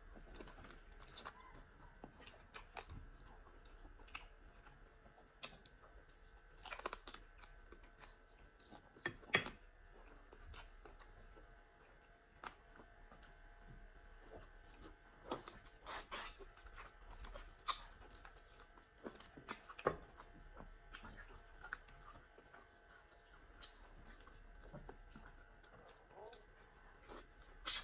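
Faint chewing and eating sounds from people eating starch and pepper soup, with scattered short clicks and smacks, a few louder than the rest.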